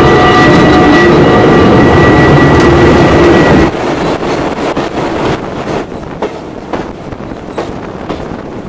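Steam tram running along the track: loud running noise with steady ringing tones over it for the first three and a half seconds. It then cuts abruptly to quieter running with a stream of short clicks.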